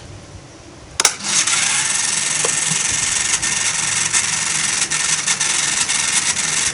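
Small electric motor of a remote-control car switched on about a second in, then running with a steady, gritty high whir. It spins without moving the target it is rigged to drive.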